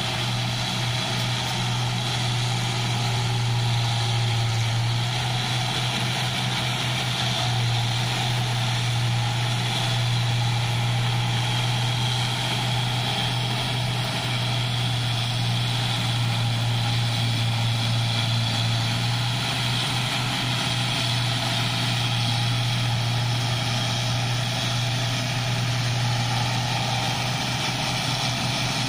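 Combine harvesters working in a rice paddy: their diesel engines give a steady drone with a strong low hum, under an even mechanical noise.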